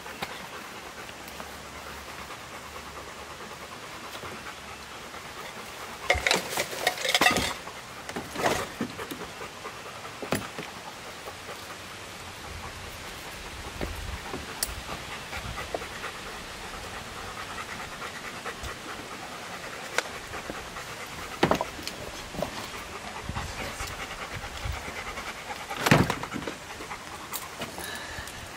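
A dog panting steadily, with several knocks and thumps, the loudest a cluster about six to seven seconds in and another about twenty-six seconds in.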